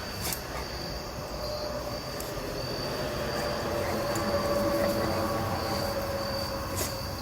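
A steady low rumble with a faint held tone that swells to a peak midway and eases off, over a thin, steady high insect trill.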